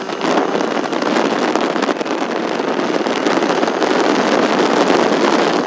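Steady, loud wind rushing over the microphone on a moving motorcycle, mixed with the bike's road noise.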